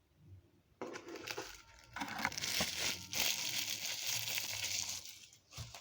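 Packaging crinkling and rustling as it is handled, starting about a second in and running in loud stretches until shortly before the end.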